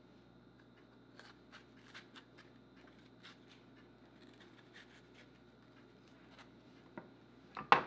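Small knife cutting the ribs and seeds out of a green bell pepper held in the hand: faint, scattered crisp snicks. A loud sharp knock comes near the end.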